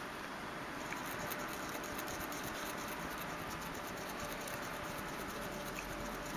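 Faint, steady scratching of a cotton swab wet with isopropyl alcohol rubbed over the trackball contacts of a BlackBerry Bold, cleaning off oxidation.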